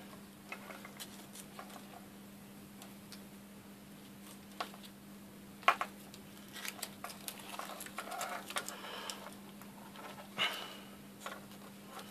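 Hands working a multi-core cable and small hand tools on a wooden bench: scattered clicks and small knocks, the loudest about halfway through, and a stretch of rustling in the second half, over a steady low hum.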